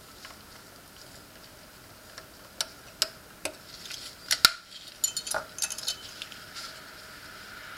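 Small metal tools clicking and tapping against the parts of a mechanical wristwatch as it is taken apart: a few separate sharp clicks, then a quick run of lighter clicks about five seconds in.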